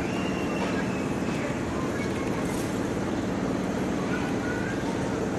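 Steady outdoor hubbub of a crowd, with indistinct distant voices.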